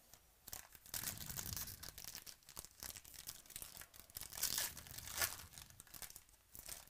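Foil trading-card pack wrapper being torn open and crinkled by hand: a run of irregular crackling rips, loudest a little past the middle.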